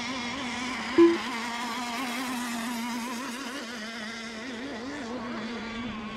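RC racing boat engines buzzing out on the course, their pitch wavering up and down as the boats run. A short, loud beep sounds about a second in.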